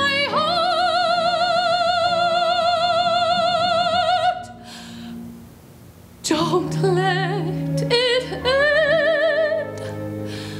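A woman singing a musical-theatre solo in a high, trained voice with wide vibrato over instrumental accompaniment. She holds one long high note for about four seconds, the accompaniment carries on softly for a moment, and she sings again about six seconds in.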